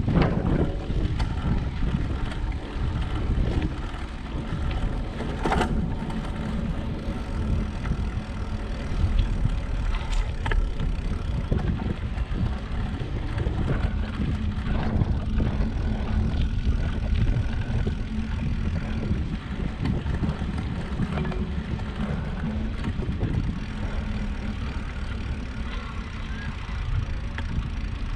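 Wind buffeting the microphone and tyre and road noise from a bicycle being ridden: a steady low rumble, with a couple of sharp clicks.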